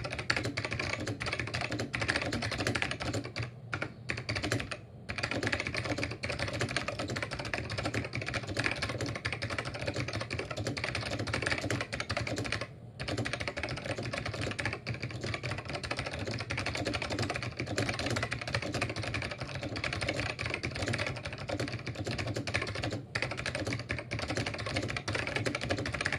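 Typing on a Macally keyboard with bamboo white Alps switches and OEM-profile double-shot keycaps: a rapid, continuous run of key clicks, broken by short pauses a few seconds in and about halfway.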